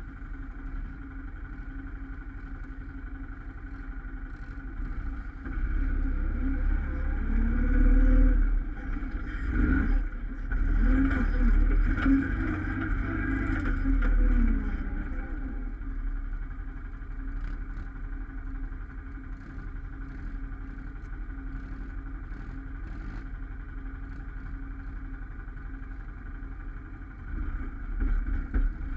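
Can-Am Outlander ATV engine running close by, revving up and down in uneven bursts as it crawls over rough ground, then settling to a steady idle, with other ATV engines running nearby.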